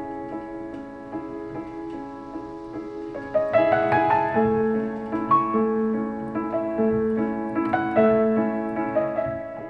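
Piano music played back through a pair of Tang Band W4-2142 4-inch full-range drivers in small bass-reflex cabinets, fading out near the end.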